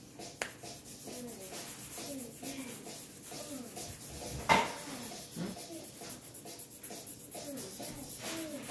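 Colored pencil rubbing back and forth on paper as a drawing is shaded in, a steady scratchy stroking. A single sharp knock comes about halfway through.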